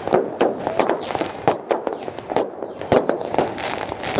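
Fireworks going off overhead: sharp bangs a few times a second, overlapping with a continuous crackle.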